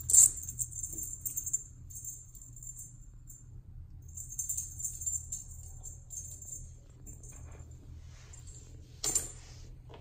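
Light metallic jingling, like a small bell, coming in several bursts over the first seven seconds and once more near the end, where there is also a brief rustle.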